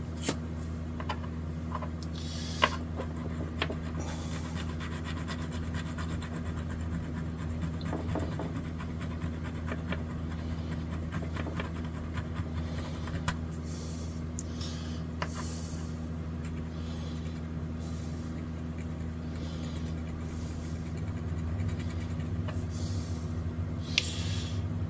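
A steady low hum, with a few light clicks and soft rustles from a new potentiometer and a length of wire being handled by hand.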